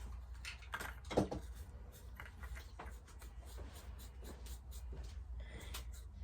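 Faint scratching strokes of a marker drawing on felt, with light clicks and handling noises at irregular intervals.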